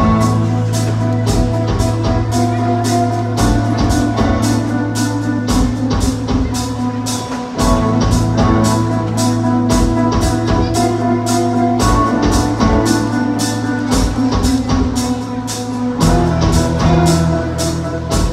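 Show music with a steady, quick beat over held bass notes, played loud over a sound system.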